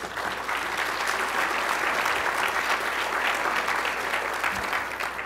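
Audience applauding: a burst of many hands clapping that builds quickly, holds, and tapers off near the end.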